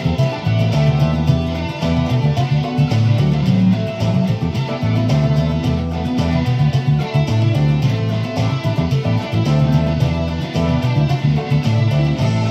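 Sunburst Stratocaster-style electric guitar played with a pick, a boogie over a steady beat.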